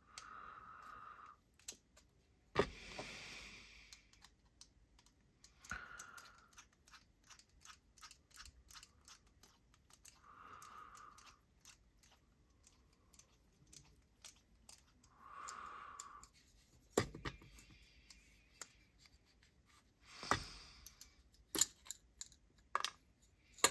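Faint clicks, ticks and scrapes of small metal folding-knife parts being handled and pressed together while a crossbar lock's omega spring is worked into place, with a few sharper knocks. Several short, blurred sounds about a second long come in between.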